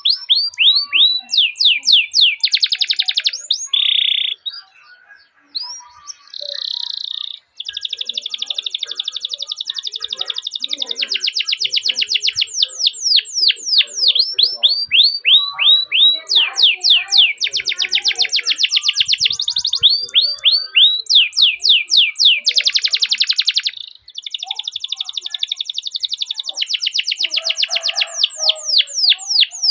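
Domestic canary singing a long song: runs of quick downward-sweeping 'cuit cuit' notes alternating with long, rapid rolled trills. There is a brief pause about five seconds in.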